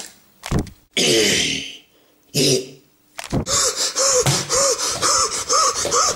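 A person's voice making short gasps and cries, then a steady run of rhythmic grunts, a little over two a second.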